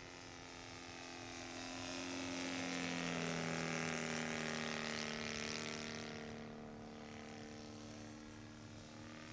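Saito FG-61TS 61cc four-stroke gasoline twin on a large radio-controlled XCub model plane making a low flyby. The engine's drone swells to its loudest about three to four seconds in, drops in pitch as the plane passes overhead, then fades.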